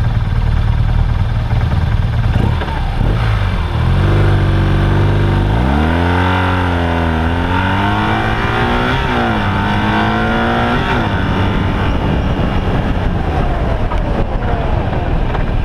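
Motorcycle engine accelerating hard, its pitch climbing and dropping back twice as at upshifts, over heavy wind rush on a bike-mounted microphone. About eleven seconds in the engine note falls away as the rider shuts off and brakes for an ABS stop, leaving the wind and road noise.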